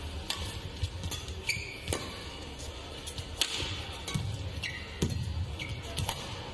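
Badminton rally: rackets strike the shuttlecock in sharp hits about once a second, with short squeaks of court shoes on the mat between them, over a steady arena background.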